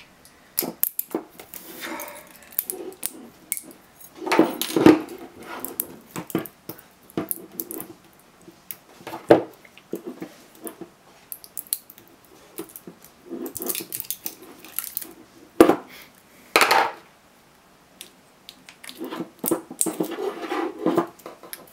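Pliers tearing the welded nickel strips off 18650 lithium-ion cells while pulling a laptop battery pack apart: irregular metallic clicks, scrapes and clinks, with a few louder bursts of clatter.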